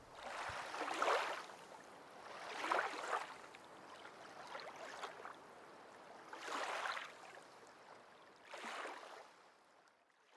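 Faint rushing water that swells and fades about every two seconds, like small waves washing in.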